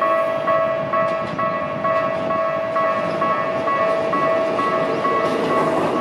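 Japanese railway level-crossing warning bell ringing in a steady repeating ding at about two strokes a second. From about five seconds in, the running noise of an approaching Keikyu 1000-series electric train rises under the bell as the train reaches the crossing.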